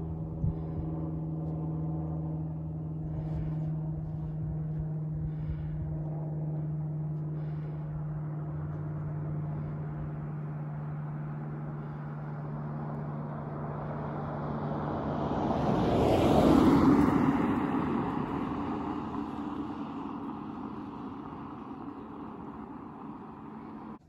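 Aircraft flying over: a steady low drone, then a rushing noise that swells to its loudest about two-thirds of the way through and slowly fades away.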